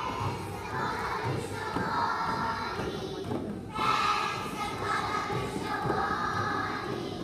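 Young children's choir singing together, with hand frame drums beaten along in a steady thud. A brief pause a little past halfway, then the singing comes back louder.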